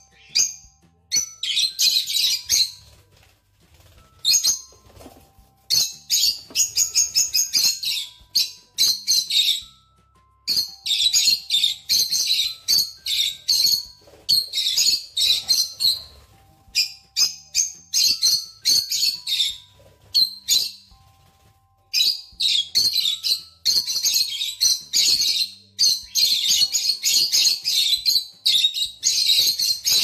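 Rosy-faced lovebirds chirping: shrill, rapid chattering in bouts a few seconds long, with short lulls between.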